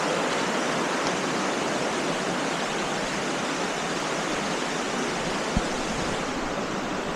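Steady rushing of falling and flowing water from the Arroyo Alcázar, an even hiss without pauses, with one soft low thump about five and a half seconds in.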